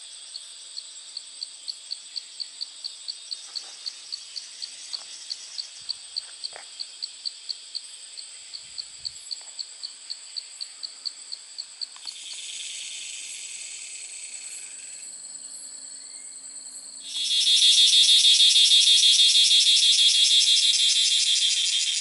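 Tropical insects calling: a high chirp repeats about three or four times a second over a steady high buzz, then about halfway through gives way to a continuous buzz, and some five seconds later a much louder, shrill insect chorus sets in.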